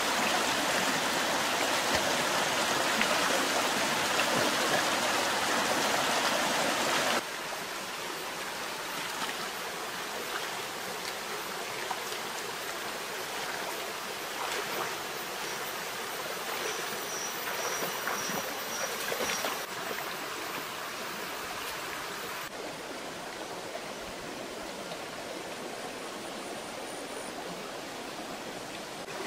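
Shallow rocky stream running over stones, a steady rush of water. It is loudest at first, drops abruptly about seven seconds in, then runs on more quietly.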